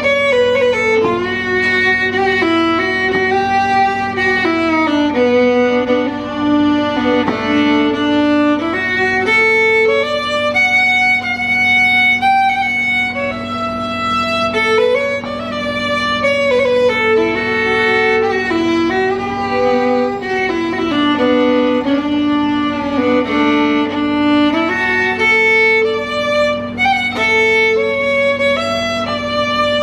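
Solo fiddle playing a slow melody that steps and slides up and down, over a steady low drone.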